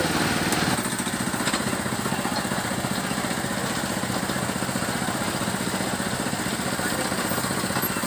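Small engine of a sugarcane juice crushing machine running steadily with a fast, even pulse.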